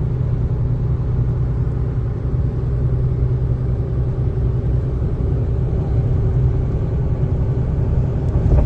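Steady low rumble of road and engine noise inside a pickup truck's cab cruising at highway speed.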